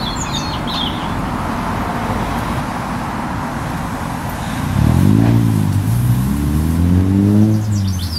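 Steady rumble of road traffic from a busy roundabout. About five seconds in, a vehicle engine grows louder and accelerates, its pitch climbing and shifting as it pulls away. Birds chirp briefly at the start and near the end.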